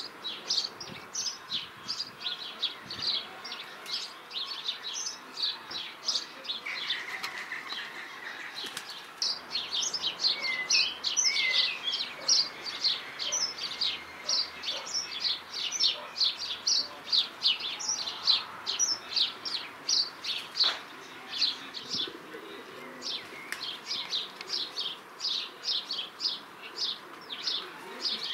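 Small garden birds chirping in a steady run of short, repeated chirps, two or three a second, with a brief lull about a third of the way in.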